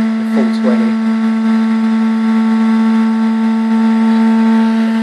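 Brushless DVD-writer spindle motor spinning a dual-layer DVD at about 15,000 RPM under a plastic cover: a steady hum with overtones, holding one pitch.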